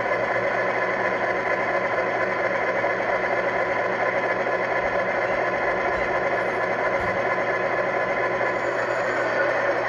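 Diesel locomotive engine sound from a LokSound 5 sound decoder in a Rapido E8A model locomotive, played through a small Tang Band speaker, running steadily at an even pitch.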